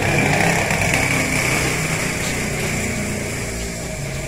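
A small engine running steadily, with a high whine that is strongest in the first second or so.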